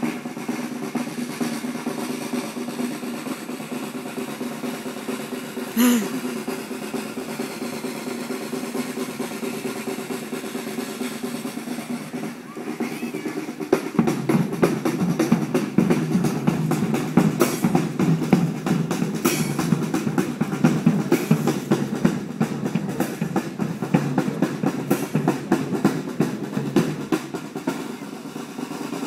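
Marching band playing, with snare and bass drums to the fore over sustained brass notes; the playing gets louder and fuller about fourteen seconds in.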